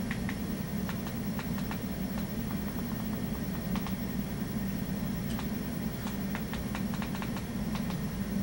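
Steady low hum with a scattered series of light clicks, bunched together in the last third: a computer mouse being clicked while browsing files on an Android TV box.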